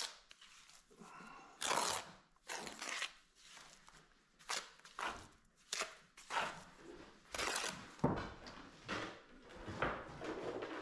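Steel trowel scooping and scraping mortar on a mortar board: a run of short, gritty scrapes and knocks at an uneven pace.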